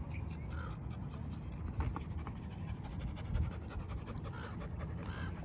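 Dog panting in short, soft breaths over a low rumble, with two brief knocks about a second and a half apart.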